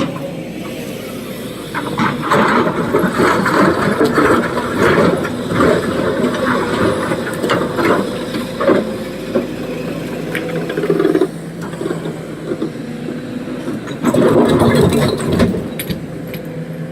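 SANY SY225 excavator's diesel engine running with a steady hum, under two spells of loud clattering and rattling, typical of rock being dumped into a truck body: a long one from about two seconds in to about eleven seconds, and a shorter one near the end.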